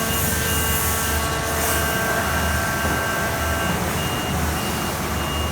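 CNC waterjet cutting machine running while cutting plastic: a steady hiss over a low hum, with a high tone pulsing on and off.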